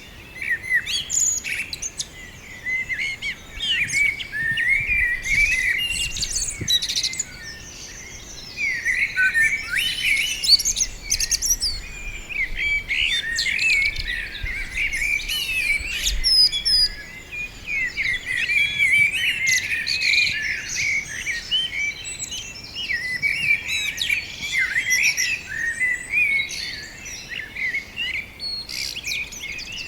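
Several songbirds chirping and warbling at once in a dense, continuous chorus of quick, twittering notes, thinning briefly about eight seconds in and again a little past halfway. A faint low rumble of wind comes and goes underneath.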